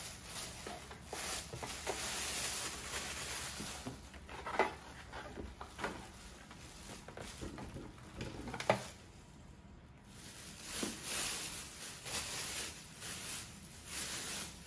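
Thin plastic bag rustling and crinkling as it is worked off an espresso machine, with a couple of sharper knocks partway through.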